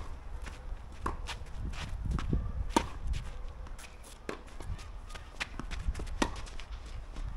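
Tennis rally: sharp pops of racquets striking the ball, the loudest about every one and a half seconds, with smaller ticks of bounces and footsteps on the court between them.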